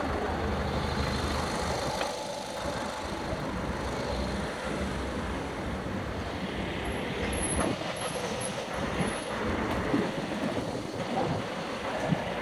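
Town street traffic noise. A nearby vehicle's engine idles for about the first two seconds, followed by steady road noise with a few light knocks.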